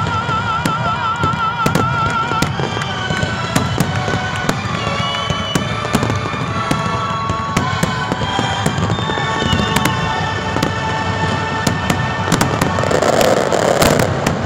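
Fireworks display: aerial shells and fountains going off in an irregular, rapid string of sharp bangs and crackles.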